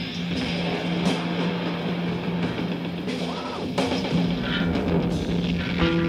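Post-hardcore rock band music: a drum kit and guitar playing over a low note that holds steady.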